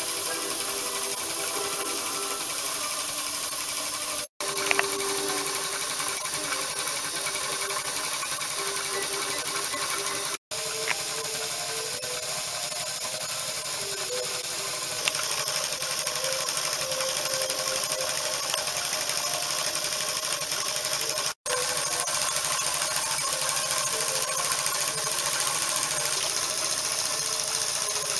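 A small model double-acting engine running on compressed air: a steady mechanical clatter with air hiss. It stops dead for an instant three times, at cuts between shots.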